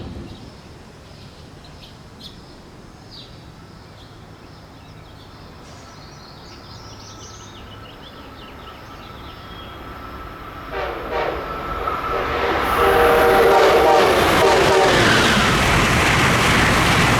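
Amtrak Acela Express high-speed trainset approaching and passing at speed. It sounds its horn, a chord of several steady tones, starting about ten seconds in. A loud rush of wheels and air builds over the last few seconds.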